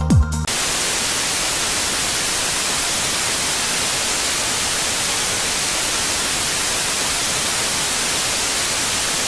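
Electronic dance music with a pounding kick drum cuts off about half a second in, and a steady, loud static hiss takes over.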